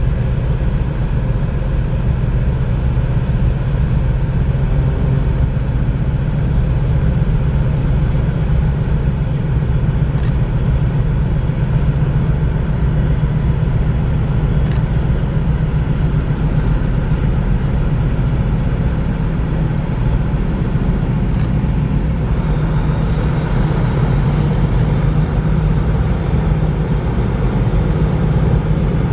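Steady low engine drone with a hum, from a large ro-ro vehicle carrier's machinery as it manoeuvres to berth. It grows slightly brighter in the last quarter, with a few faint ticks.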